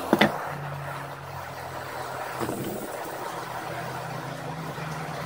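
Handheld gas torch on a butane canister: a couple of sharp clicks at the start, then the steady hiss of its flame. A low steady hum runs underneath.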